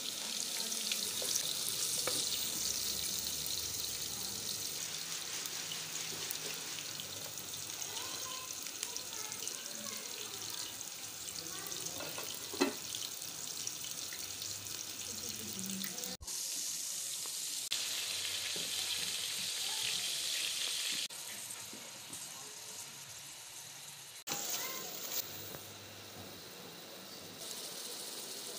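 Onions and then chicken frying in oil in an aluminium cooking pot, a steady sizzle that changes abruptly at cuts between shots. There is a single brief knock about halfway through.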